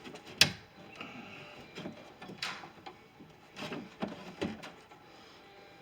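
Clicks and rattles of metal parts inside a pickup truck's door as the stuck rear door latch is worked free. A single sharp click about half a second in is the loudest, followed by a few scattered clatters.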